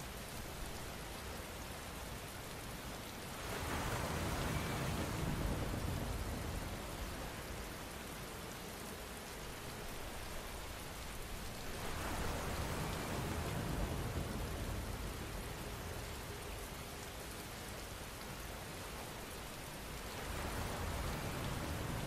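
Steady rain, an even hiss that swells louder three times: about four seconds in, about twelve seconds in, and near the end.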